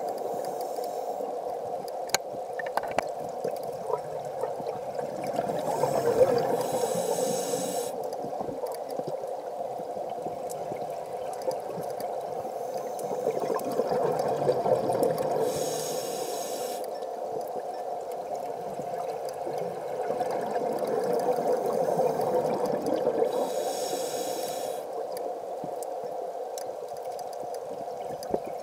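Scuba diver breathing through a regulator underwater, in slow breaths about eight seconds apart: each is a hissing inhale and a longer swell of bubbling exhale. A steady underwater hum runs under it.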